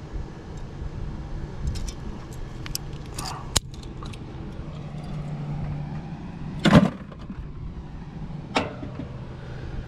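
Hand tools clicking and snapping while the insulation is stripped off a ground wire: a series of short sharp clicks, the loudest about seven seconds in, over a steady low hum.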